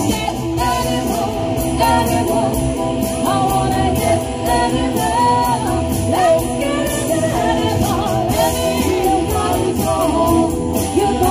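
Live rock cover band playing an 80s pop-rock song: women singing the lead, with electric guitar, bass guitar and a steady drum beat.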